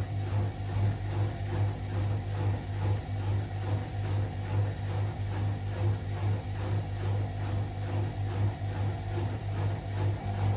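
Hotpoint Aquarius WMA37 washing machine running with its drum turning: a steady low motor hum that pulses about three times a second.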